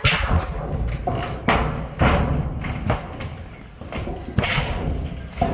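A series of irregular dull thumps, about six in five seconds, over a low rumble.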